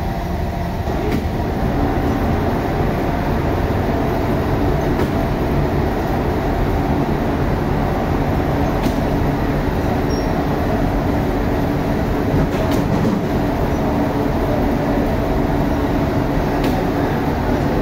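Bakery machinery running: a steady rumble with a low hum from the gas-fired flatbread oven and its rotating plate and tray, with a few faint clicks.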